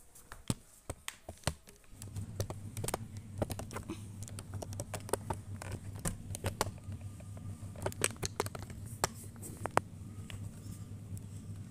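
Handling noise from a camera being set up and positioned: a run of sharp, irregular clicks and taps, with a steady low hum starting about two seconds in.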